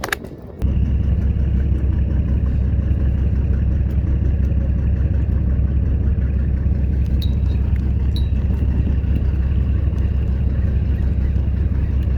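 Fishing boat's engine running under way, a loud, steady low rumble that comes in suddenly about half a second in.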